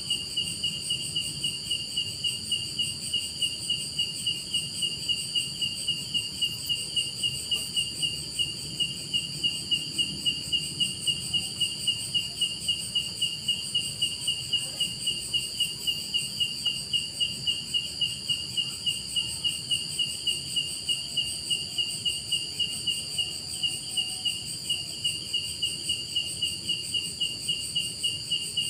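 Night insects chirping: a cricket-like chirp repeating evenly about three times a second, over a steady, higher continuous trill.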